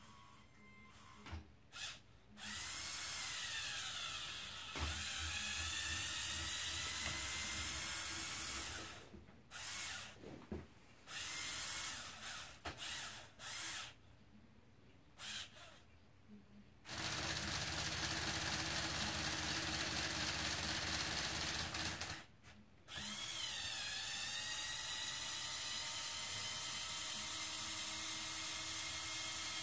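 Small electric motors of a remote-controlled Lego Technic hooklift truck whining in stop-and-go runs as the hook arm hauls a container aboard and then tips it up. Several runs start with a short pitch swoop as the motor takes up the load.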